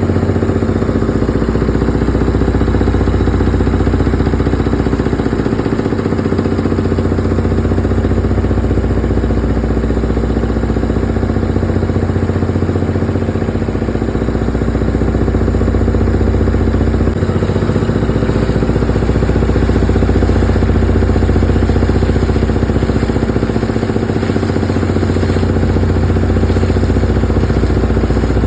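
Borewell drilling rig machinery running steadily under power, a constant engine hum with a deep rumble that dips briefly about every six seconds.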